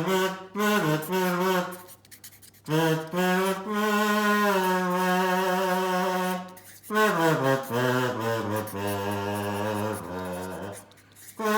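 A slow solo melody of long held notes that slide between pitches, with short breaks between phrases, over a steady low hum.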